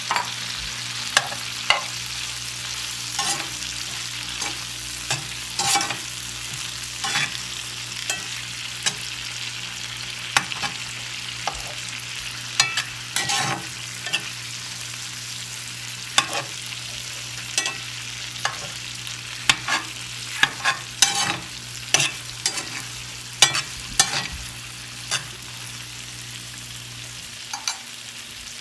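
Boiled egg pieces and tomato frying in oil in a pan, sizzling steadily, while a spatula stirs them, scraping and knocking against the pan at irregular moments.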